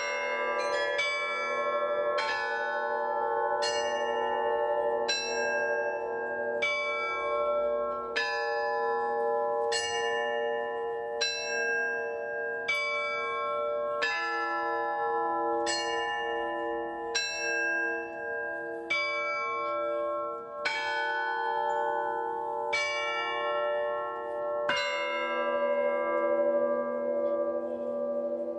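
Cast bronze bells rung in sequence, about one stroke a second, each stroke ringing on and overlapping the next, with the lower tones pulsing as they decay. A few quick strokes open the run, and a heavier, deeper bell comes in twice in the latter part.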